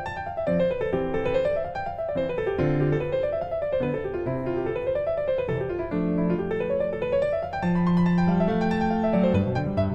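Background piano music: quick rising and falling runs over held bass notes.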